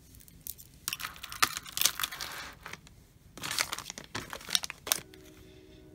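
Plastic bead packet crinkling as it is handled, in two bouts of a second or two each.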